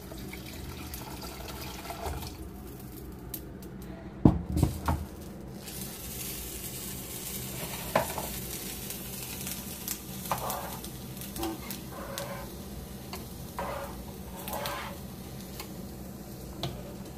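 Hot coconut milk being poured from a pot into a rice cooker's inner bowl of washed rice, with a utensil stirring and clinking against the metal. Scattered knocks throughout, the loudest a cluster about four seconds in.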